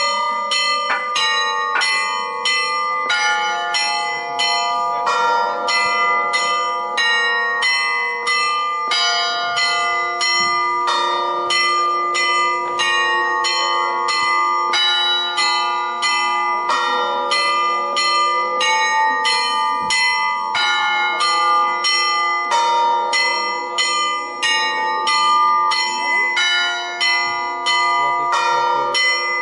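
Orthodox church bells ringing in a fast, steady rhythm, about two to three strikes a second, several bells of different pitch overlapping as they ring on.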